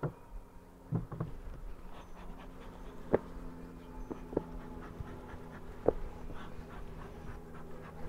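Honeybees humming steadily from an opened top-bar hive, with a handful of sharp knocks spread through as the bee smoker and wooden top bars are handled.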